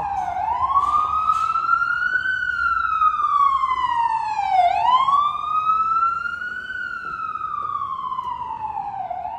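Ambulance siren on a slow wail, its pitch rising for about two seconds and falling for about two, two full sweeps. It grows fainter after about six seconds.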